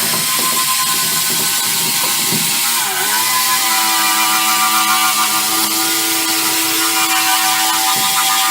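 Handheld electric power tool running steadily while stripping a classic Mini's steel bodywork to bare metal. Its whine dips in pitch about three seconds in as it is pressed onto the metal, then holds steady a little lower.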